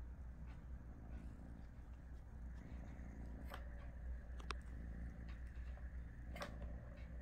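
A few soft clicks and taps, about three, of a cat's paw against a plastic ball-track tower toy, over a low steady hum.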